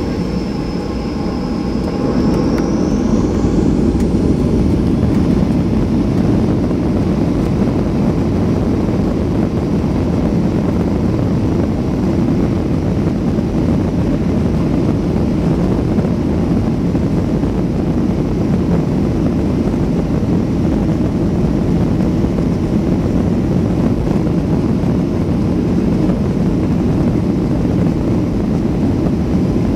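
Boeing 737-800 jet engines heard from inside the cabin: a high whine rises as the engines spool up to takeoff thrust about two seconds in, then steady loud engine noise as the airliner accelerates down the runway on its takeoff roll.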